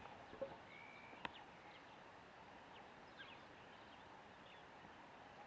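Faint outdoor quiet with scattered short bird chirps and a brief whistle, broken by a couple of sharp clicks, the loudest just over a second in.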